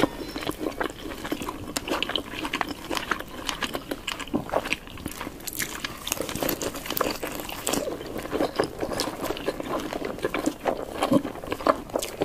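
Close-miked mukbang eating of chicken wings: a steady run of bites, chewing and wet mouth and lip smacks, with irregular crisp clicks.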